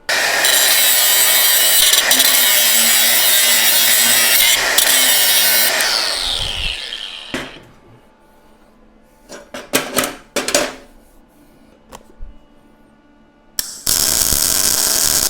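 Power grinder cutting through a steel tack weld, then winding down with a falling whine about six seconds in. A few sharp metal knocks follow, and the grinder runs again briefly near the end.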